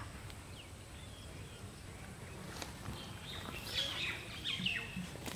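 Birds chirping in short, high calls, bunched together a little past the middle, over faint steady outdoor background noise.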